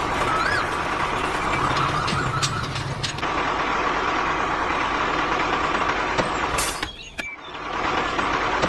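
Construction machinery engine running steadily, with the noise dropping away briefly about seven seconds in.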